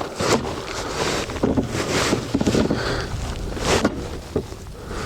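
Wind buffeting the microphone as an uneven, gusty rumble and hiss, with a few brief knocks, the loudest about a third of a second in and near the end.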